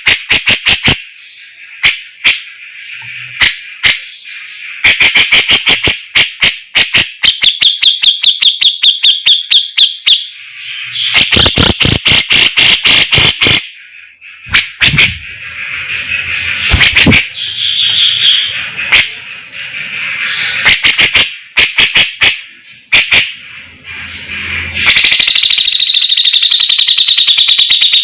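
Cucak jenggot (brown-cheeked bulbul) singing loudly in rapid, rattling runs of sharp notes. Bursts of quick chatter and trills are broken by short pauses. A long, dense trill starts a few seconds before the end.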